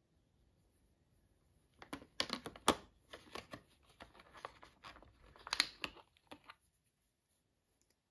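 A dense run of crackles and rustles, like something being handled, starting about two seconds in and stopping about four and a half seconds later.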